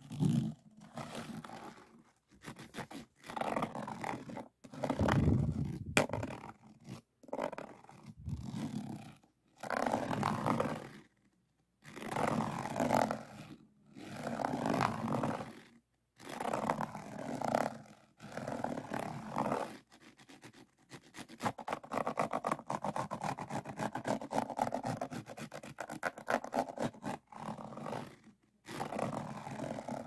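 Diamond-painting pen scraped and tapped over the rows of faceted resin drills on a finished canvas. It comes in short scraping strokes of a second or two each, and in the second half there is a longer run of fast rattling clicks.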